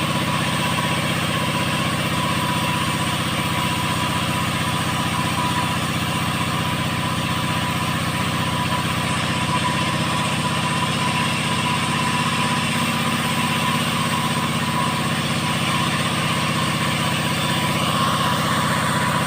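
Mini 5800-type two-stroke chainsaw with a 22-inch bar running at a steady, unchanging speed.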